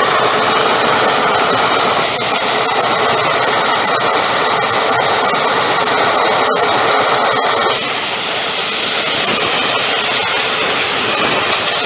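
Helicopter engine and rotor noise heard from inside the cabin in flight: a loud, steady rushing drone that dips slightly in level about eight seconds in.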